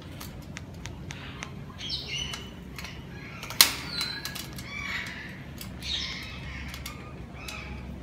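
White cockatoo's beak clicking and clacking against the wire mesh of its aviary, with one sharp, loud clack about three and a half seconds in. Short bird chirps and calls come in several times.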